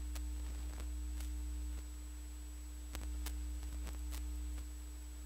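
Steady electrical mains hum that swells louder for a second or two near the start and again in the middle, with a few faint clicks and one sharp click right at the end.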